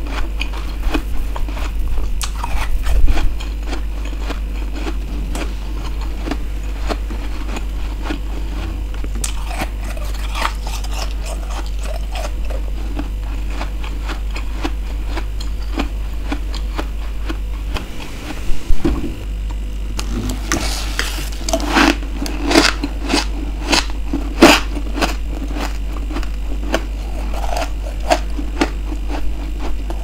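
Humidifier freezer frost being chewed and crunched close to the microphone: scattered crunches at first, then a run of loud, rapid crunching about two thirds of the way through, over a steady low hum.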